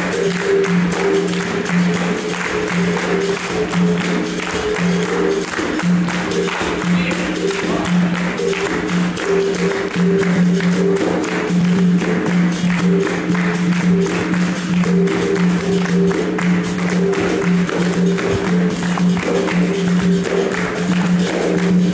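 Capoeira roda music: a berimbau sounds its repeating pitched notes over an atabaque hand drum and the jingling of a pandeiro, in a steady rhythm that runs on without a break.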